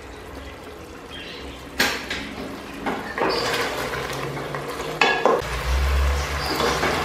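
Wooden spatula stirring and scraping through mutton curry in a stainless steel pot, with a sharp knock against the pot about two seconds in and another about five seconds in, the clatter getting busier in the second half. The curry is being dry-fried (bhuna) to cook off its remaining liquid.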